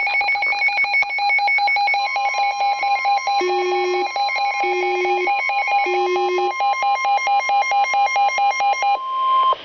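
Weather radio alert for a flash flood warning: rapid, repeating electronic beeps, about five a second. The steady NOAA Weather Radio warning alarm tone joins about two seconds in and stops just before the announcement. Three short, lower tones sound midway.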